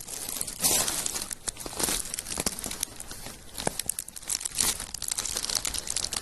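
Continuous rustling and crinkling of something being crumpled or pawed, with many quick irregular crackles and louder flurries about a second and two seconds in.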